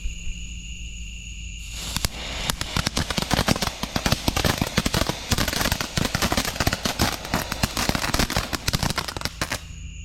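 Legends fountain firework going off with a dense, fast crackling, starting a couple of seconds in and stopping just before the end, about eight seconds in all.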